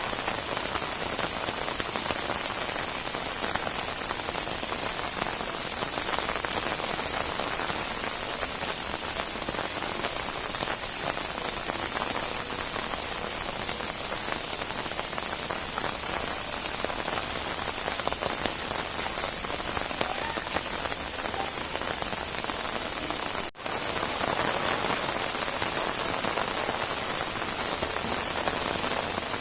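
Heavy, steady rain falling on surfaces, a dense even patter of drops. It cuts out for a split second about three-quarters of the way through, then resumes slightly louder.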